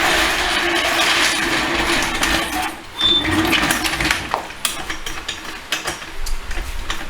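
Jack being brought under the car and set in place to raise it. A scraping metal rattle lasts about three seconds, then scattered metallic clinks and knocks follow.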